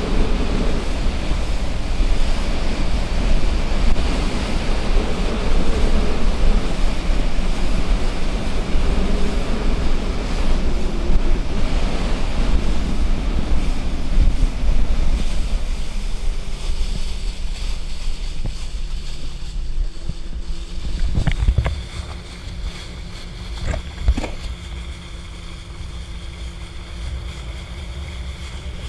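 Wind buffeting the microphone and water rushing past a small boat's hull as it runs across open water. About two-thirds of the way through, the rush drops away suddenly, leaving a steady motor hum and a couple of knocks as the boat slows.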